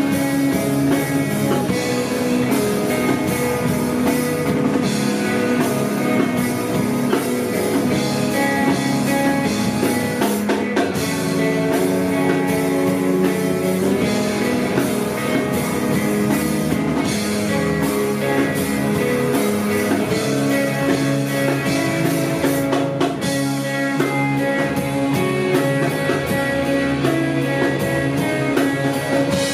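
Live rock band playing: electric guitar and electric bass over a Sonor drum kit with cymbals, holding sustained notes at a steady loudness.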